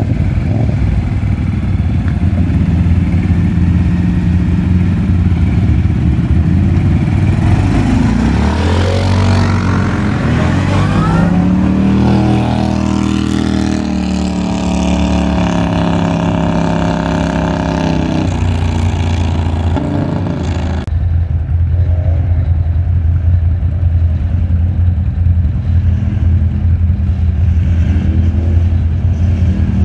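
Several quad ATV engines running and revving as the ATVs drive by, their pitch rising and falling as they pass. About two-thirds through, the sound turns duller and a single ATV engine keeps running.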